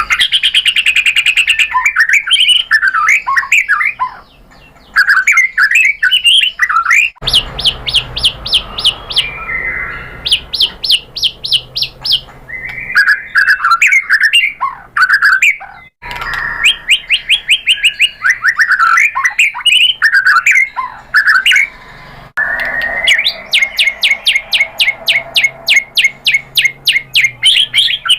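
White-rumped shama (murai batu) singing a loud, varied song: whistled phrases alternating with long runs of fast, sharp repeated notes. The song breaks off abruptly three times where separate recordings are joined.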